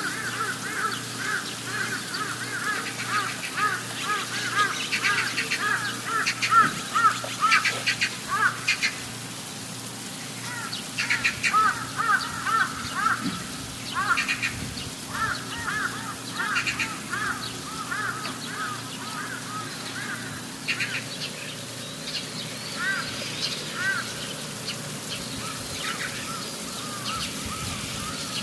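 Birds calling in a long run of short, quick, repeated chirps, thickest in the first third and again in the middle, over a faint steady hiss.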